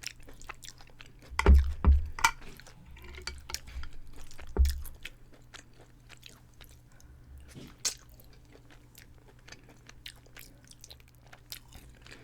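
A person chewing a mouthful of Parmesan chicken and spaghetti, with many small wet clicks and smacks. A few heavier dull thumps come in the first five seconds.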